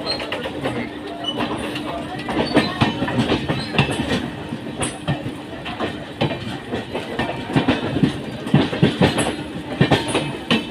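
Two passenger trains running side by side: steel wheels clattering over rail joints and points in an irregular run of knocks, over a continuous rumble and a steady hum.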